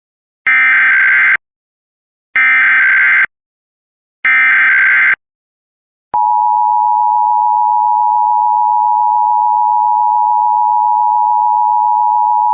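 Emergency Alert System tones: three bursts of SAME header data about a second long each, the digital header that opens an EAS message. About six seconds in, the steady two-tone EAS attention signal (853 and 960 Hz) begins and holds.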